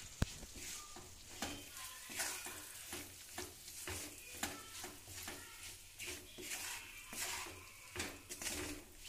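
Wooden spatula stirring grated raw turmeric and spices in mustard oil in a non-stick kadai, a soft scraping stroke roughly every half second to second, with one sharp knock of spatula on pan just after the start.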